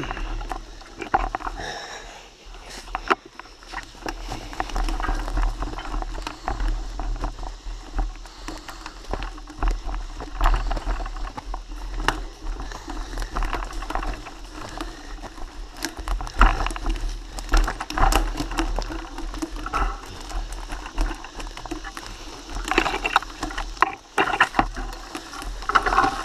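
Mountain bike ridden along a wooded dirt trail: tyres crunching over dry leaves and sticks, with constant clicks and rattles from the bike and a low rumble on the microphone.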